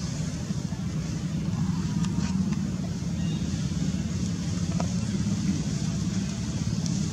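A steady low engine drone, holding an even pitch, with a few faint ticks.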